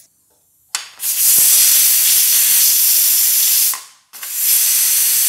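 Loud hiss of steam rushing out of an aluminium pressure cooker's vent as its pressure is let out. The hiss starts about a second in, cuts off suddenly just before four seconds, and starts again a moment later.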